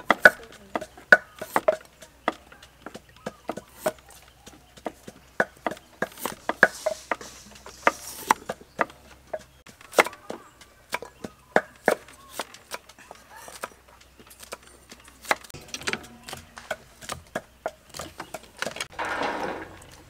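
Cleavers chopping carrots on wooden chopping blocks: irregular sharp knocks of the blade hitting the wood, sometimes several in quick succession. A brief rustling clatter comes near the end.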